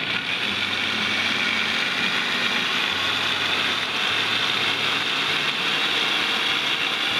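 Countertop blender motor running steadily, churning a thick, heavy batter of ripe bananas and oat flour.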